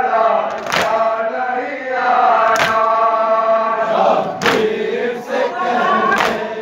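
A large group of men chanting a nauha lament in unison. Every couple of seconds, about four times, a sharp collective slap sounds: matam, hands striking chests together in time with the chant.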